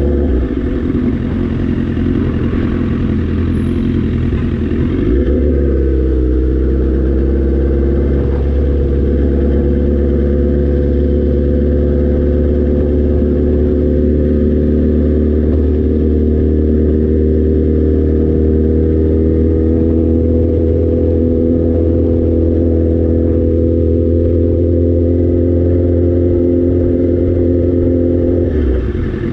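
Motorcycle engine running steadily at low street speed, heard from the bike itself; its note dips briefly about five seconds in, then climbs slowly as the bike gently gathers speed.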